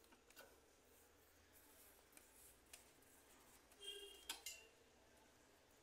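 Near silence, with a few faint clicks and taps from the melanger's plastic stone holder being handled in its steel drum. A small cluster of clicks and short squeaks comes about four seconds in.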